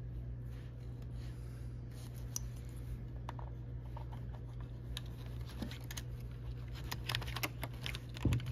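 Plastic clicks and light scrapes of an Apple IIgs space bar keycap and its stabilizer wire being worked onto the keyboard, trying to seat the wire ends in their slots. The clicks are sparse at first and come thicker and louder over the last few seconds, over a steady low hum.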